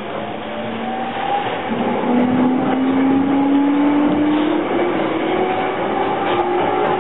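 E231-series electric train running with its traction motors whining, several tones climbing slowly in pitch over steady wheel-on-rail rumble as the train accelerates. Heard from inside the passenger car.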